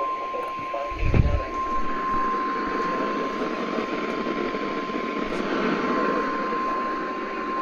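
NOAA Weather Radio 1050 Hz warning alarm tone, one long steady high tone sounded as part of the required weekly test, heard through a radio receiver's static hiss. A low thump comes about a second in.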